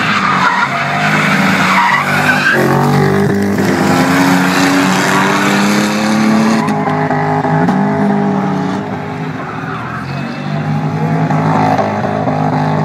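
Drifting cars' engines revving hard, the pitch rising and falling with the throttle, while the tyres skid and squeal through the slides.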